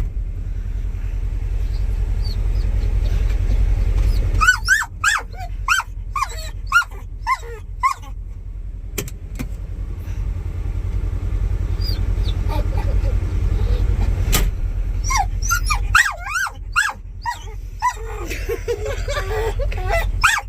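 A pit bull whining and yipping in clusters of short, rising-and-falling cries, agitated because its owner is outside. A steady low rumble runs underneath, with a couple of sharp knocks.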